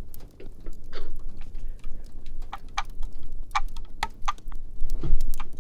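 Fireplace crackling: irregular small pops and clicks over a low steady rumble, with a duller thump about five seconds in.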